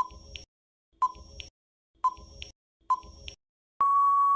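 Quiz countdown timer sound effect: short beeps about once a second, then one long steady beep near the end signalling that the time to answer is up.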